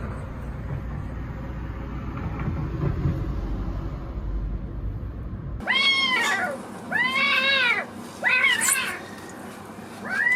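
A low rumble of background noise that cuts off abruptly, then a cat meowing loudly about four times, each call rising and then falling in pitch.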